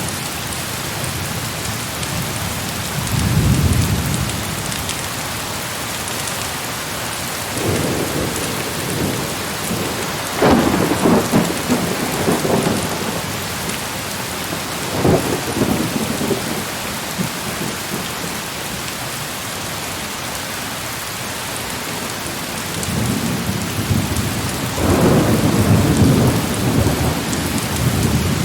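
Heavy rain falling steadily, with thunder rumbling several times over it: once about three seconds in, a longer roll from about eight to thirteen seconds, briefly around fifteen seconds, and again near the end.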